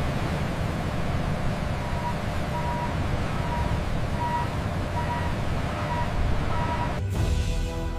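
A heavy vehicle's engine running with a steady rumble, with faint beeps repeating every second or less through the middle. Music starts abruptly near the end.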